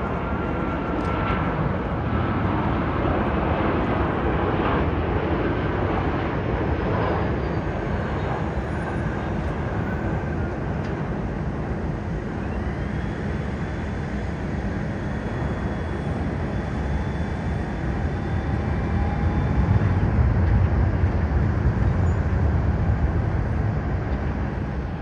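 Jet airliner engines running, a high whine rising about halfway through and then holding steady over a continuous rumble that swells louder near the end.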